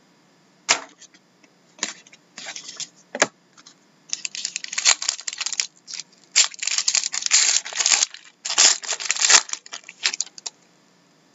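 A trading-card pack's plastic wrapper being torn open and crinkled by hand, in dense rustling spurts through the second half. It is preceded by a sharp click and a few lighter handling rustles.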